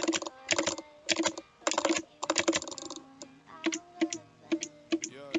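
Computer keyboard typing: quick bursts of clustered key clicks, slowing to separate single key presses about three seconds in.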